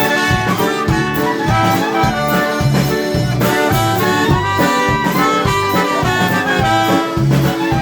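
Polka band playing live: an accordion carries the melody over a steady, evenly pulsing bass beat, with brass joining in.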